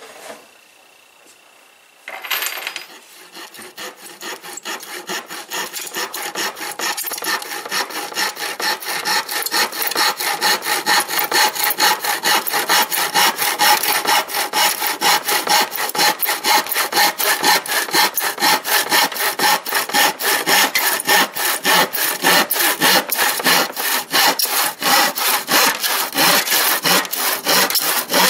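Handsaw cutting through plywood by hand, starting suddenly about two seconds in, then a steady rhythm of back-and-forth strokes that grows louder over the first several seconds as the cut gets going.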